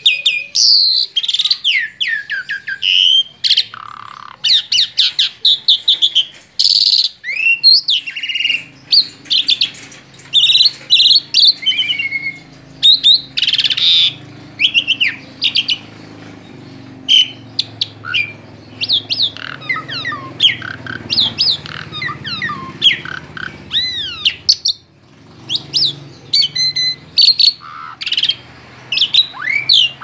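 Asian pied starling (jalak suren) singing a long, varied song of quick whistles, chirps and rising and falling slides, delivered in rapid phrases broken by short pauses.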